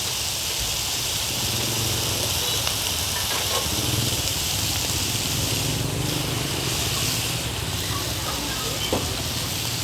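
Bột chiên (rice-flour cake and egg) frying in oil on a large flat pan, a steady sizzling hiss.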